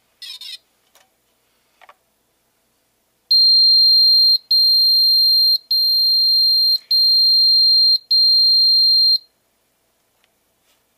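3DR Solo warning tone: five long, loud, high-pitched electronic beeps of about a second each, separated by very short breaks, after a short hiss and a couple of light clicks. The tone signals that the drone will not arm and take off, as it has no GPS lock.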